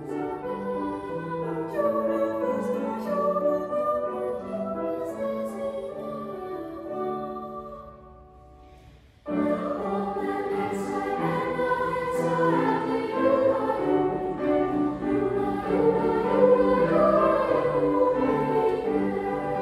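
Boys' choir singing a Christmas medley in a reverberant church. A phrase fades out about eight seconds in, and after a brief pause the choir comes back in suddenly and fuller.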